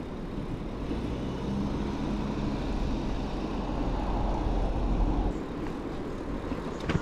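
A motor vehicle passing on a road, its noise building to the loudest point about five seconds in and then falling away, over a steady low rumble. A sharp click near the end.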